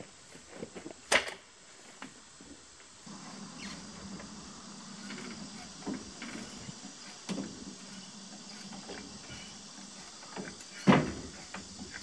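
Heavy wooden railroad ties knocking and thudding against a utility trailer as they are loaded by hand: two loud thuds, about a second in and near the end, with lighter knocks between. A steady faint hum sets in about three seconds in.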